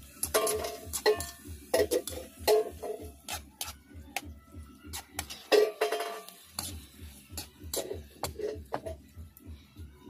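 A metal spatula scraping and clinking against a wok while chicken pieces are stirred, in sharp irregular clatters. Background music with a steady beat plays underneath and drops out briefly about six seconds in.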